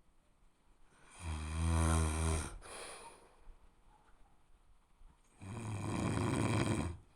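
A person snoring: two long, low snores about four seconds apart, each lasting about a second and a half, with a short breath just after the first and quiet breathing between.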